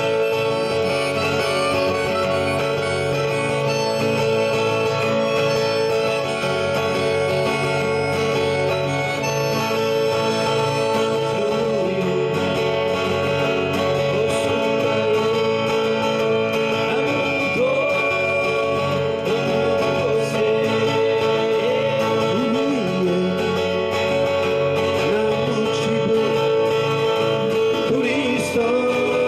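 Live acoustic music: two acoustic guitars strumming, with a harmonica playing.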